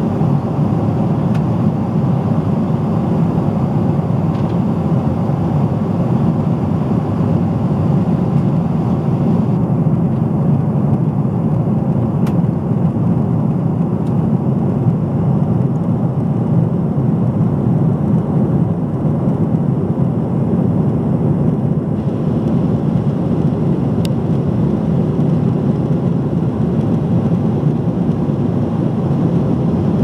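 Jet airliner cabin noise in cruise flight: a loud, steady rush of engine and airflow noise heard inside the passenger cabin.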